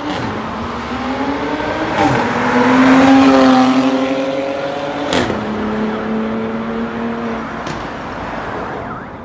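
Mercedes-AMG GLE 43's twin-turbo V6, its middle muffler cut out and exhaust valves welded in, accelerating hard past. The note rises through the gears, with two upshifts about two and five seconds in, each marked by a sharp crack. It is loudest as the car goes by, then runs on at a steady note as it pulls away.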